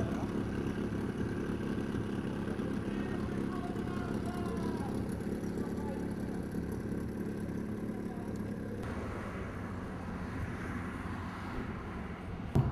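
A steady low rumble with faint, distant voices over it.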